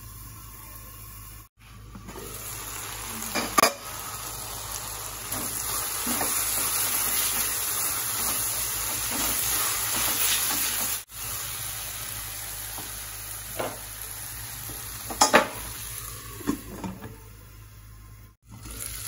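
Mushrooms and onion frying in a nonstick kadhai, sizzling steadily, louder in the middle while a wooden spatula stirs them. A few sharp clinks and knocks of cookware stand out, one about three and a half seconds in and a pair near fifteen seconds.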